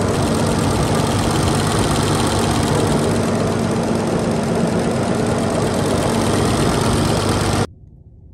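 Cummins 6.7 inline-six turbodiesel running steadily with its valve cover off, just after its exhaust valve lash was set and a fallen rocker refitted. The sound cuts off suddenly near the end.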